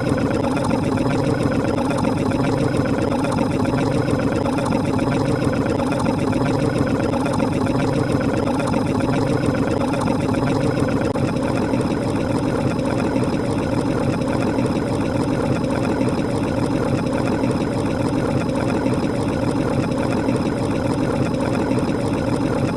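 A dense, steady wall of many overlapping sound effects with an engine-like drone and a fast, fine pulsing, unchanging throughout.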